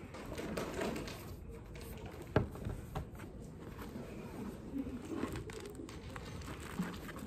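Canvas backpack being handled: fabric rustling and small clicks as things are moved about inside it, with a single sharp knock about two seconds in and the bag's zip being worked near the end.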